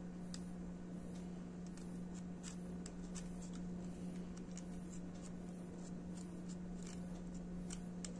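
Small scattered plastic clicks and finger rubbing from handling a Zhiyun Smooth Q3 phone gimbal's grip and pressing its zoom rocker buttons, over a steady low hum.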